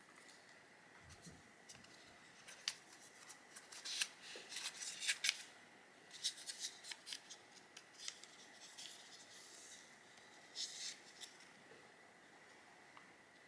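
Thin plastic packaging crinkling and rustling in short, irregular bursts as small repair-kit parts are handled and unwrapped, busiest about four to five seconds in and again near the end.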